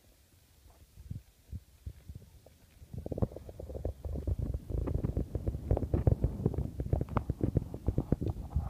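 Wind buffeting the phone's microphone: a low rumble with crackles, light gusts at first, turning much heavier about three seconds in.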